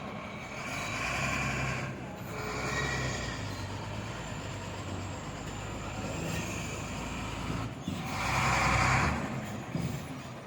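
Machinery running with a low rumble, broken by three louder noisy bursts of about a second each, the loudest near the end.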